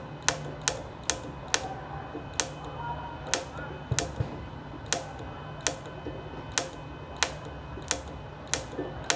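A TIG welding arc from a stick welder converted to TIG, running on test: sharp irregular clicks, about two a second, over a steady low hum.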